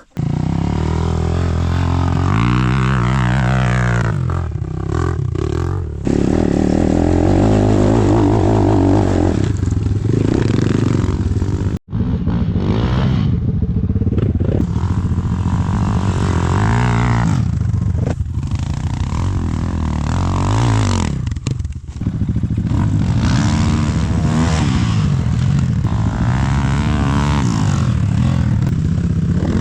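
Enduro dirt bike engine revving up and dropping back again and again as it is ridden through ravines, with clattering and scraping. The sound cuts out suddenly for an instant about twelve seconds in.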